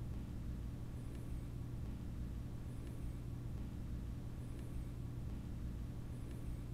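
Steady low hum, with a faint short high chirp repeating about every second and a half.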